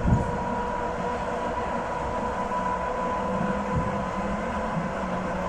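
Electric commuter train running at speed, heard from inside the carriage: a steady rumble with a thin, steady whine on top. Low thumps come just after the start and again near four seconds in.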